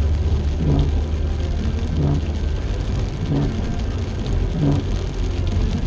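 Car driving in the rain, heard from inside the cabin: a low engine and road rumble, with the windshield wipers sweeping about once every second and a quarter. The low rumble eases a little about halfway through.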